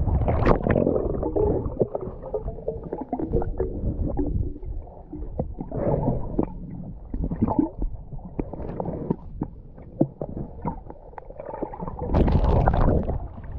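Muffled underwater sound of a swimmer in a lake: low gurgling and rumbling of water with scattered clicks and bubbles. Near the end a louder burst of splashing water.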